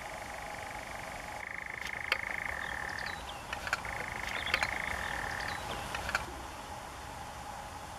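European nightjar churring: a fast, even trill that shifts pitch about a second and a half in, breaks off briefly, resumes for about two seconds and stops a little before six seconds in. A few sharp clicks sound over it.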